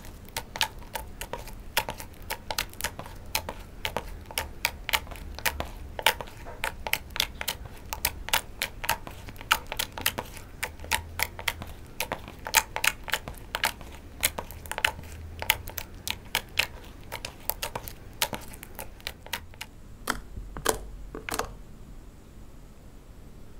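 Thick, glossy slime being kneaded, stretched and folded by hand, giving a steady run of sharp, wet clicks and pops, several a second.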